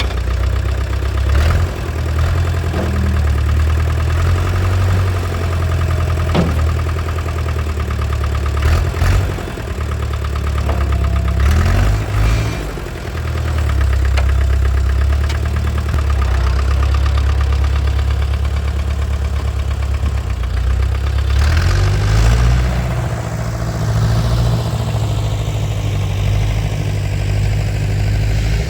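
Diesel engine of an International 3414 tractor-backhoe running as the machine is driven, with several short clanks along the way. The engine speed dips and recovers once about halfway through, then rises about three quarters of the way in and holds higher.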